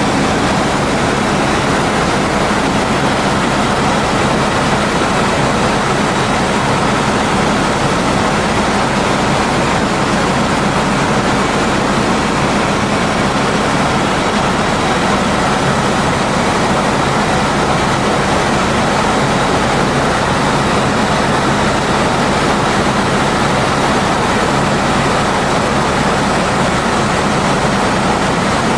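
Helicopter engine and rotor noise heard inside the cabin: a loud, steady drone with a low hum underneath.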